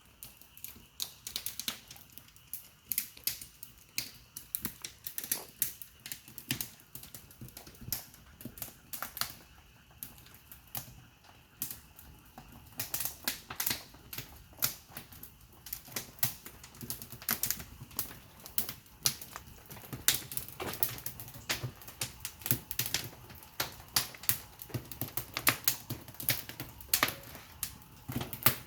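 Burning firewood crackling and popping in the firebox of a wood-fired pottery kiln: sharp, irregular snaps that come thicker about halfway through.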